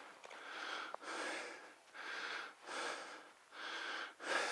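A person breathing heavily and rhythmically while walking, about one breath a second.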